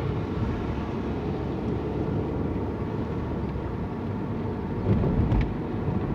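Steady engine and tyre rumble heard from inside a moving car on a rainy road, with a brief louder low bump about five seconds in.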